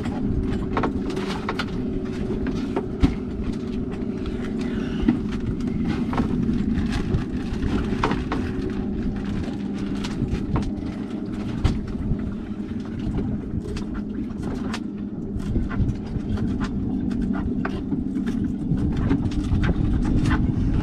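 115 hp outboard motor idling steadily over a low rumble of wind and sea, with a few scattered sharp knocks.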